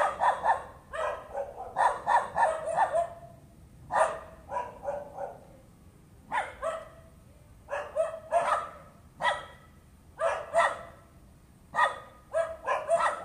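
Dog barking repeatedly in quick runs of several barks with short pauses between: persistent nuisance barking.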